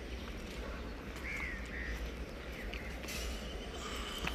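Steady low hum under faint background noise, with two short chirps a little over a second in and a faint thin whistle-like tone near the end.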